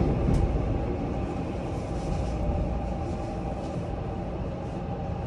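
Subway train running, heard from inside the carriage: a steady low rumble with a faint steady tone and a few light clicks over it.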